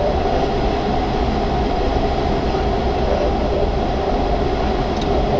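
Steady rush of airflow over the canopy and fuselage of a Grob 103 glider in free flight, heard from inside the cockpit, with a low rumble under it.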